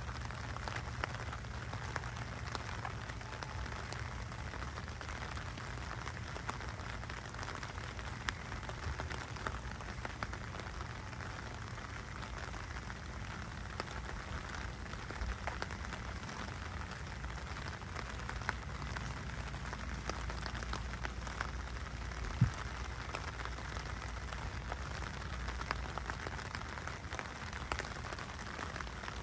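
Steady rain falling on a wet street, a dense patter of drops over a low rumble. One sharp tap stands out about three-quarters of the way through.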